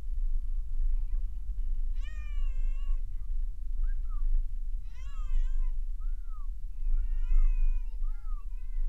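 Several drawn-out, meow-like cries that rise and fall in pitch, three long ones and a few shorter ones, over the steady low rumble of the car driving.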